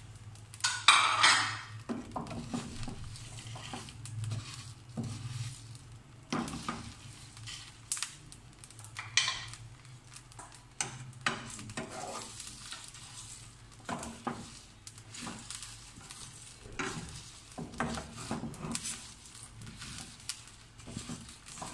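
Whole spices (dried red chillies, cumin, coriander seed, fennel and ajwain) dry-roasting in a non-stick frying pan and stirred with a plastic spoon: irregular scrapes and rattles of the seeds against the pan, with a light sizzle. There is a louder clatter about a second in.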